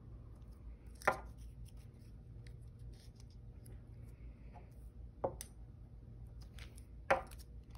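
Glue stick and hands rubbing faintly on paper as word strips are pressed onto a worksheet on a tabletop, with three sharp taps on the table: about a second in, about five seconds in, and just past seven seconds.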